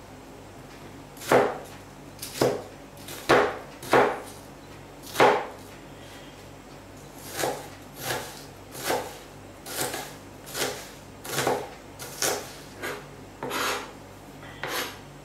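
A kitchen knife chopping an onion on a cutting board: separate knocks of the blade striking the board at an uneven pace, about one a second, coming a little quicker in the second half.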